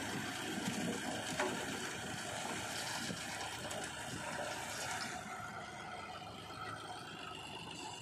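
Swaraj 744 FE tractor engine running steadily while its hydraulics tip a loaded trolley bed, with soil sliding off the raised bed.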